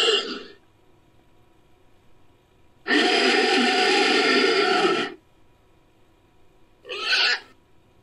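Made-up monster calls for a snake-like creature, mixed from titanoboa, raptor and Cryolophosaurus sound effects: a call fading out just after the start, a longer call of about two seconds about three seconds in, and a short call near the end.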